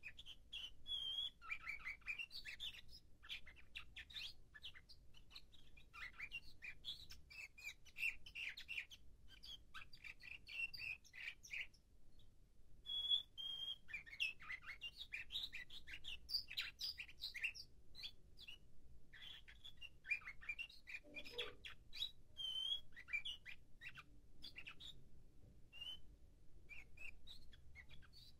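Nightingale-song canary singing a long, nearly unbroken run of chirps, trills and short whistled notes, with a brief pause about twelve seconds in. It is a young bird in its song-arrangement (tertip) stage, still putting the order of its song together, and is expected to sing louder as that settles.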